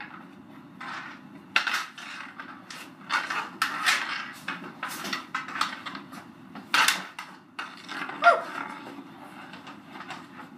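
Hockey sticks clacking and knocking against a concrete floor, each other and the ball or puck in a quick, irregular run of sharp hits, with a brief squeak late on.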